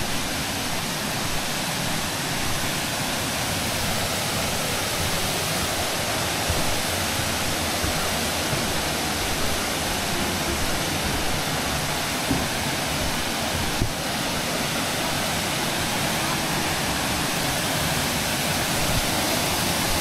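Waterfall pouring into its pool: a steady, even rush of falling water.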